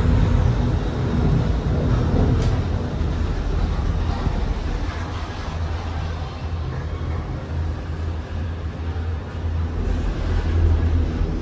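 Steady low rumble of a Disney Skyliner gondola cabin running along its cable line, heard from inside the cabin.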